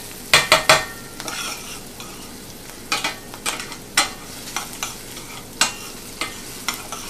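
Chopped onion sweating in oil in a stainless steel frying pan with a steady sizzle, while a spoon stirs it, scraping and clinking against the pan. The loudest sounds are three quick knocks of the spoon on the pan about half a second in. Sharper strikes keep coming every second or so after that.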